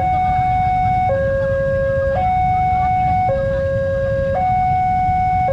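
Railway level-crossing warning alarm sounding with the barrier down: an electronic two-tone signal that alternates between a higher and a lower tone about once a second, warning that a train is approaching. It sounds over a steady low rumble.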